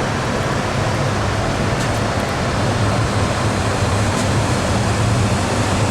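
Interior of a stationary CRRC Orange Line subway car: a steady rush of air with a constant low hum from the car's ventilation and onboard equipment while the train is held in place.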